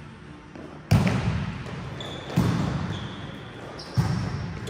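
Three sharp hits of a volleyball, about a second and a half apart, each echoing in the hall, with faint high squeaks between them.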